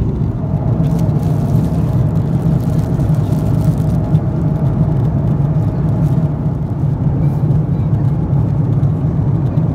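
Steady in-flight cabin noise of an Airbus A330-300: a loud, even low rumble of the engines and airflow heard from a passenger seat, with a faint steady hum above it. Light crinkling of a plastic headphone bag being handled in the first few seconds.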